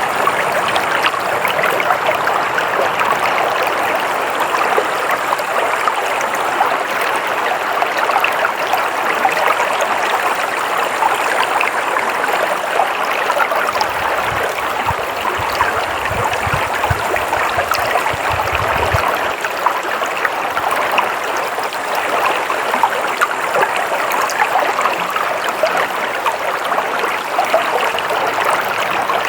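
Stream water flowing and splashing steadily, an even, unbroken rush. A low rumble runs under it for a few seconds past the middle.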